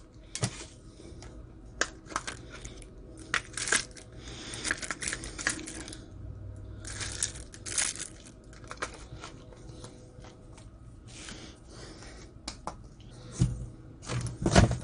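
Small boxed knives handled inside a cardboard shipping box: scattered light clicks and knocks as the boxes tap against each other, with brief rustling of packing peanuts and cardboard.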